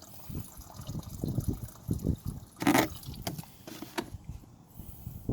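Water draining from a water heater's drain hose, splashing and trickling unevenly into a container, with one louder splash about two and a half seconds in.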